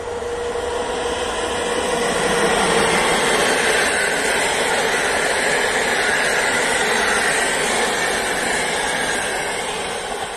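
Electric-hauled passenger train passing close by. A steady hum from the approaching locomotive is followed by the wheels running on the rails as the coaches go past. The noise swells over the first couple of seconds, holds, then eases off near the end as the last coach passes.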